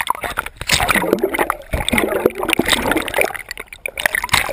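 Pool water splashing, sloshing and bubbling around a GoPro camera as it dips under the surface: a loud churning rush that starts suddenly, full of small crackles.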